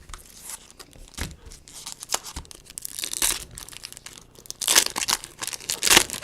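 A foil trading-card pack wrapper being torn open and crinkled, in several crackling bursts that are loudest near the end.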